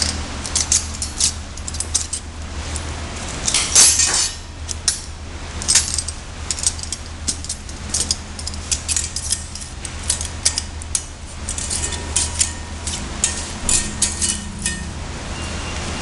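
Stainless steel strapping and a stainless buckle clinking and scraping as the band is wrapped around a pipe and threaded through the buckle: many irregular light metallic clicks over a steady low hum.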